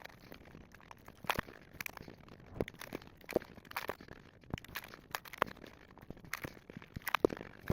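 Close-up crunching and chewing of a hard fried cannoli shell, in irregular crisp crackles several times a second.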